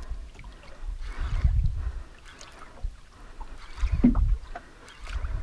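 Gusting wind on the microphone and water lapping at the hull of a small outrigger boat drifting at sea, in irregular low rumbles.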